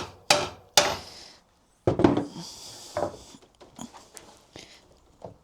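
Hammer blows on pallet boards: quick ringing strikes about half a second apart at the start, then after a brief dead gap one heavy blow about two seconds in, followed by lighter, irregular knocks and clatter of the wood.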